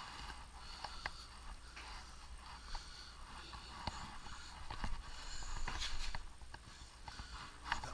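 Scattered light clicks and knocks with rustling, as from handling the camera and clothing brushing it, over a steady low hum.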